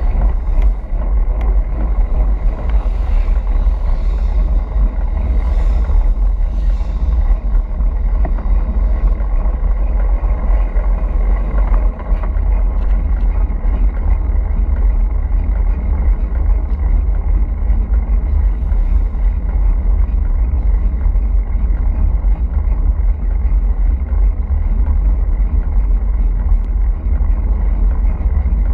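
Wind buffeting the microphone of a camera mounted on a moving road bicycle: a steady, loud low rumble.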